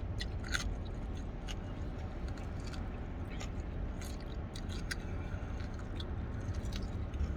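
Someone eating crunchy fried chicken wings: scattered short crunches and chewing sounds over a low steady rumble.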